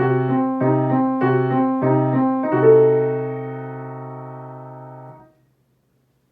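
Piano playing a short suspense cue: a low bass note struck over and over, about every 0.6 s, under shifting notes above, then a loud chord near the three-second mark that rings, fades and is damped off about five seconds in. It is a "something is about to happen" cue, the feeling that a wolf may be coming.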